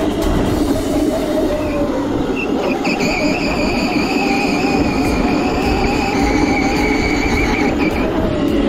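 Razor Crazy Cart electric drift kart driving on concrete: a steady high electric-motor whine over the rumble and scrub of its small hard wheels.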